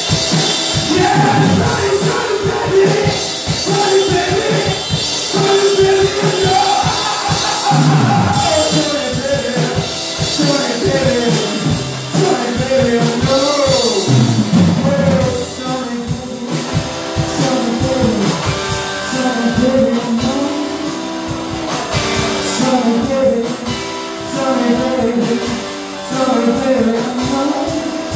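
Small live rock band playing: a male singer's lead vocals over electric guitar and a drum kit.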